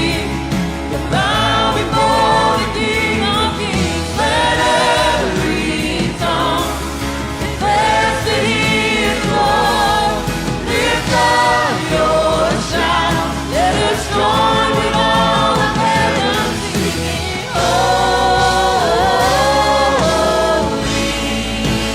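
Christian worship song: voices singing in harmony over a sustained, bass-heavy instrumental backing.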